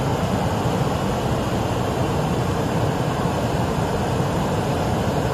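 Steady rushing of a swollen, fast-flowing stream running high after heavy rain.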